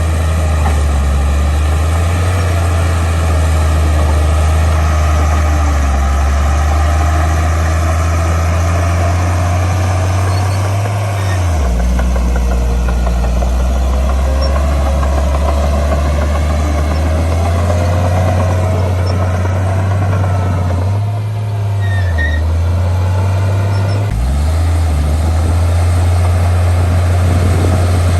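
Heavy diesel engine of earthmoving machinery running loudly and steadily. Its pitch drops about a third of the way in, then climbs back near two-thirds through after a couple of brief dips.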